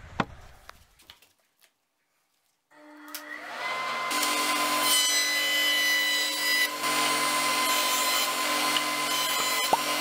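Electric jointer starting up about three seconds in, its motor and cutterhead coming up to speed with a rising whine, then running steadily with a constant whine.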